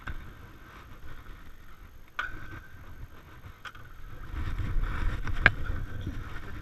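Off-road motorcycle and ATV engines idling low, with a handful of sharp knocks. The loudest knock comes about five and a half seconds in, as the low rumble swells.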